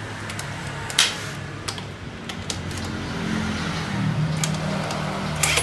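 Light clicks and taps of a cordless drill-driver and metal being handled on a motorcycle engine, with one sharper click about a second in, over a steady low hum.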